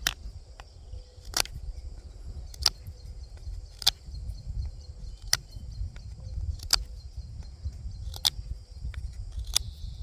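Kizer Bugai knife carving hard pine: about seven sharp cutting strokes, one every second and a half or so, over a steady low rumble.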